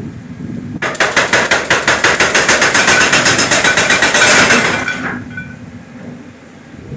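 Jackhammer breaking concrete: a rapid, even hammering of about ten blows a second that starts about a second in and stops a little before five seconds in.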